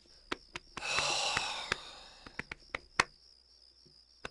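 A long, weary sigh about a second in that fades out over a second, set among scattered light clicks and a faint steady high-pitched whine.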